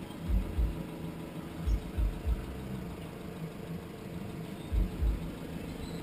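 2015 Chrysler 200 idling steadily, heard faintly, with several short low thumps of wind on the microphone.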